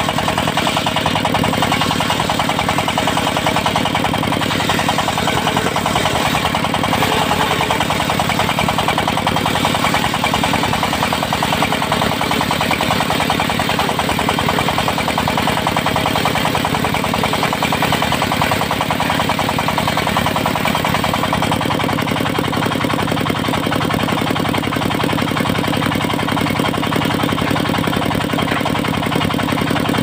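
Diesel-driven mobile circular sawmill running steadily, its large blade ripping a teak log lengthwise into a square post over an even engine rhythm. The higher cutting noise eases about two-thirds of the way in as the blade comes clear of the log.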